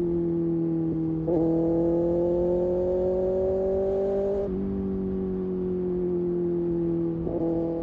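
Kawasaki Ninja ZX-6R inline-four engine running steadily while riding, with a step up in pitch about a second in, a slow rise, then a drop back around four and a half seconds.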